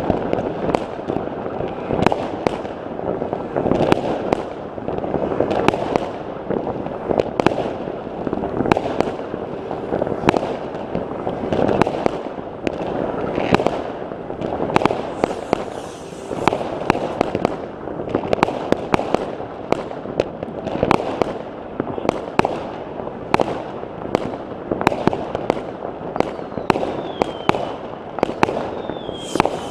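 Many fireworks going off at once: a dense run of sharp bangs over a steady din of more distant bursts, with a few falling whistles near the end.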